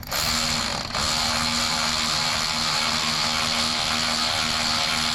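Power tool running steadily, spinning a starter mounting bolt in. There is a short burst, a brief stop about a second in, then one long continuous run.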